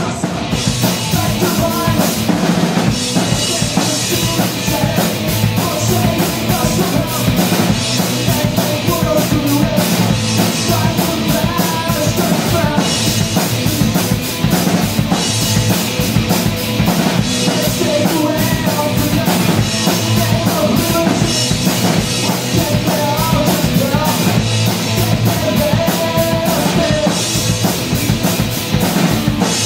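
Live punk rock band playing loud: distorted electric guitar through a Marshall amp over a full drum kit beating out a fast, driving rhythm with bass drum and snare.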